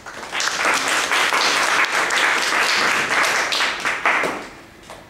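Audience applauding for about four seconds, then dying away.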